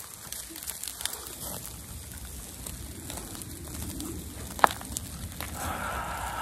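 A person eating quietly, with a single light clink of a fork against a pan about two-thirds of the way through and a breathy exhale in the cold near the end.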